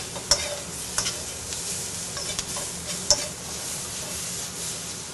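Mixed vegetables sizzling in oil in a wok over a gas flame while being stirred, with a few sharp clicks of the metal utensil against the pan.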